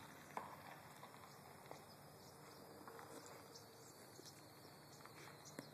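Near silence: faint outdoor background with a few soft clicks, the clearest about half a second in.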